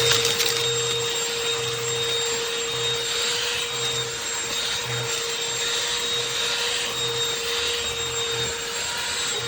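Shark CH951 UltraCyclone cordless handheld vacuum running steadily: a constant motor whine over the rush of air.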